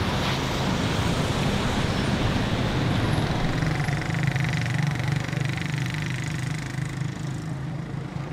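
Street traffic with motorcycle engines running, a steady rumble that eases a little near the end.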